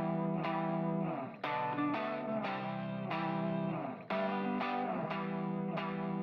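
Background music led by an electric guitar with effects, played in a steady repeating pattern.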